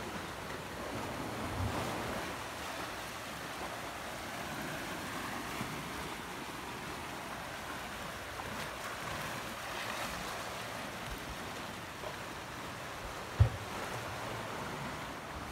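Small sea waves washing steadily against a rocky shore. About thirteen seconds in there is a single sharp low thump, the loudest sound.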